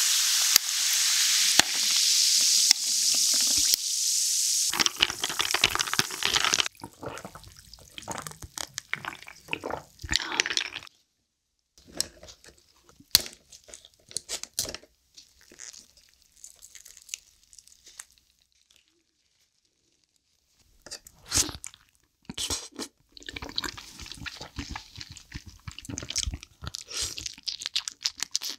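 Sparkling water poured over ice and lemon slices in a glass mug, hissing and fizzing for about six seconds. Then come scattered sharp snips of scissors cutting soy-marinated crab shell, a pause, and crab shell crunching as it is bitten and chewed.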